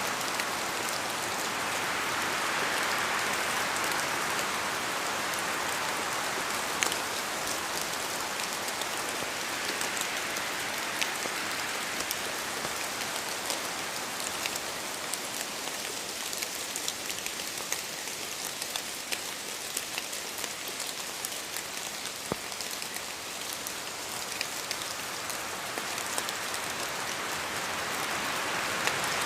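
Steady rain with many separate drops ticking close by; the rush of the rain swells, eases off through the middle, and swells again near the end.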